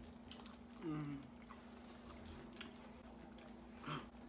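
Wet chewing and lip-smacking with soft clicks as people eat boiled shrimp, peeling them by hand, over a faint steady hum. A brief murmured voice sound about a second in.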